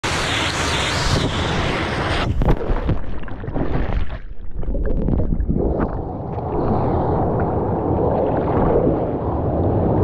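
Loud rushing-water hiss that cuts off abruptly about two seconds in, followed by a low, uneven rumble of wind buffeting the microphone.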